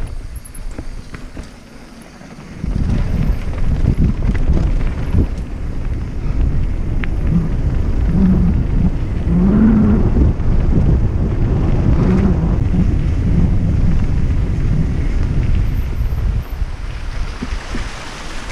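Mountain bike riding down a dirt trail: wind rushes over the camera microphone while the tyres and frame rattle over the ground. It goes quieter for a moment about two seconds in, then picks up again.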